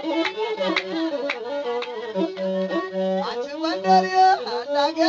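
Ethiopian masinko, a single-stringed bowed fiddle, playing an instrumental azmari melody with sliding notes over a repeated low note.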